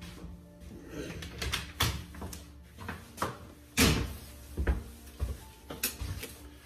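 Irregular knocks and clatter of kitchen cupboard doors, drawers and containers being handled, the loudest knock a little under four seconds in.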